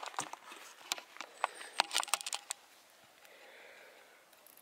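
Footsteps on a dry forest floor: irregular sharp crunches and twig snaps for about two and a half seconds, then quiet.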